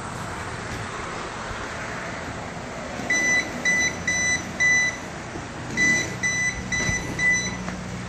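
A non-contact voltage tester beeping: eight short high beeps in two quick runs of four, starting about three seconds in. The beeps signal that it is picking up live voltage from the knob-and-tube wiring in the ceiling.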